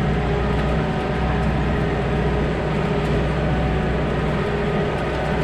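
Tractor engine running steadily under low load while the implement is lowered and raised.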